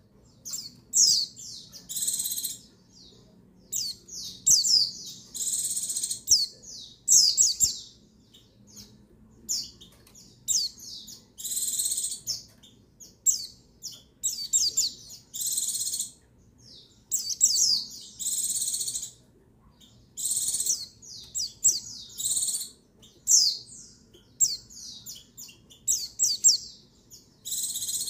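White-eye (pleci) calling, offered as a female's call to rouse males: clusters of short, high chirps that sweep quickly downward, alternating with harsher buzzy notes about half a second long. The calls come in bouts every second or two.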